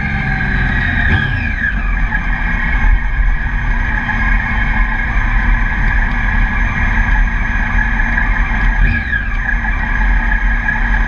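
Triumph Daytona motorcycle engine running steadily, heard from an onboard camera, with two brief falling whines: one about a second in and one about 9 seconds in.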